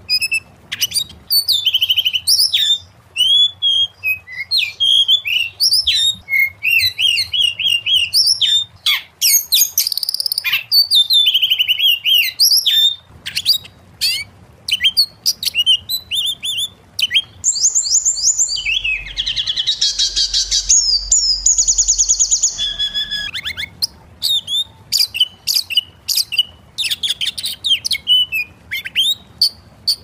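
Oriental magpie-robin singing a rapid, varied song of whistles, trills and chirps, with a harsh buzzy rattling passage about two-thirds of the way through.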